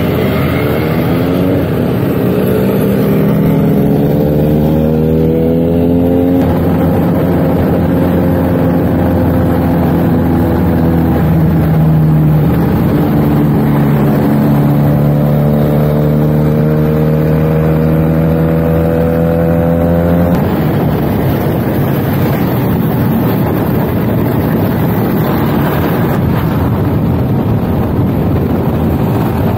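Motorcycle engine pulling hard through the gears, its pitch climbing, holding, dropping at a gear change and climbing again. About two-thirds of the way through the engine note fades under a steady rush of wind over the microphone.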